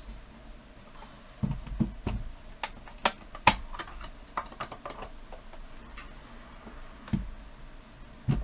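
Irregular sharp clicks and a few dull knocks as a plastic radio cabinet is handled and its screws are taken out.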